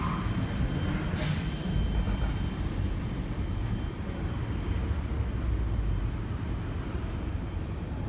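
Manifest freight train's covered hopper cars rolling away on the rails, a steady low rumble that slowly fades. A short hiss about a second in.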